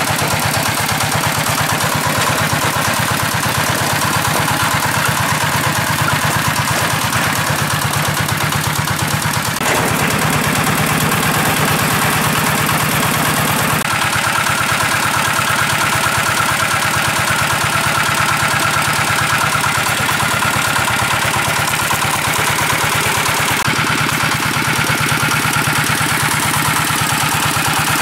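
Engine of a large water pump running steadily, draining a lake. The sound shifts slightly about 10 and 14 seconds in.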